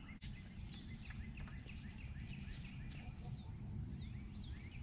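Wild birds chirping: many short, quick chirps, several falling in pitch, over a steady low rumble of outdoor background noise.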